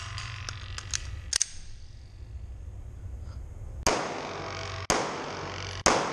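A few light clicks of the pistol being handled in the first second and a half, then three shots from an H&K VP9SK 9mm pistol about a second apart, each ringing off the walls of the indoor range.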